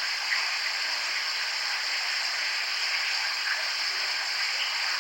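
A steady hiss like static, even throughout and strongest in the upper range, with a couple of faint ticks.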